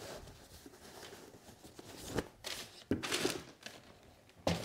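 Rustling of a crinkly boot bag and wrapping as a leather boot is pulled out, with a few sharp knocks as the leather-soled boots are set down on a marble tabletop, the loudest near the end.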